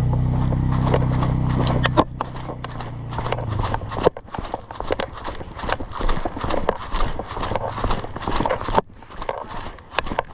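Running footsteps striking the ground in a steady rhythm of about three strides a second. A low rumble sits under the first couple of seconds and fades out.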